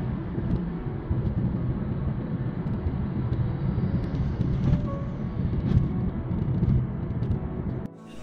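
Road and engine noise heard from inside a moving car: a steady low rumble with an unsteady level. It cuts off sharply near the end, where quiet music begins.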